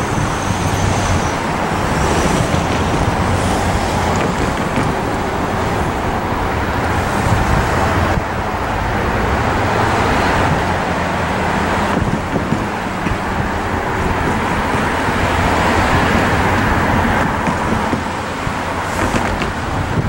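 A train moving away along the track: the steady drone of its EMD SD40-2 diesel locomotive working ahead, with the rumble of wheels on rail.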